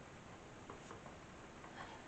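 Near silence: quiet room tone with a few faint, light clicks.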